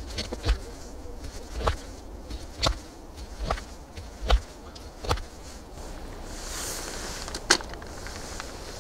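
Chef's knife chopping through a corn cob onto a wooden cutting board: about six knocks roughly a second apart. Then a rustle and one sharp click near the end.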